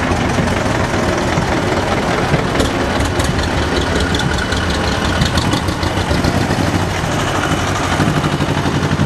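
Vintage tractor engines chugging as the tractors drive past one after another, with a rapid, rhythmic clatter coming through in the middle.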